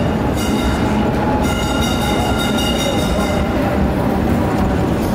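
Istiklal Street nostalgic tram running along its rails, a steady running noise with a high whine over it from about half a second in that fades out at about three and a half seconds.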